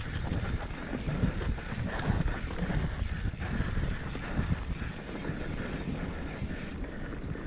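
Wind rushing over an action camera's microphone, with the uneven rumble and small knocks of a mountain bike's tyres rolling fast over a dry dirt trail.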